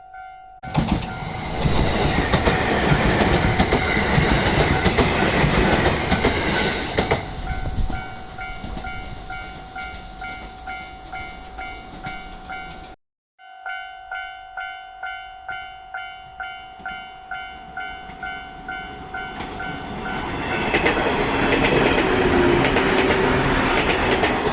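Japanese level crossing alarm bell ringing steadily at about two dings a second. An electric train passes loudly with wheel-and-rail clatter from about a second in until about eight seconds. The bell then rings on alone, with a brief dropout about halfway, and a second train comes through loudly near the end.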